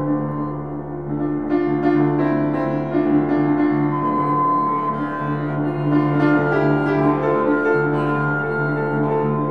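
Improvised live music: a double bass bowed in long sustained low notes, with piano notes and chords over it.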